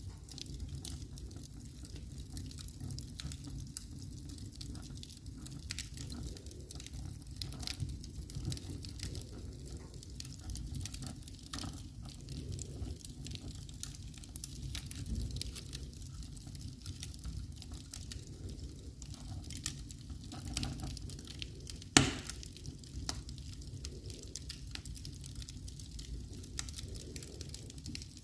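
Wood fire burning in a fireplace, crackling with many small irregular pops over a low steady rumble. One sharp, louder pop comes about 22 seconds in.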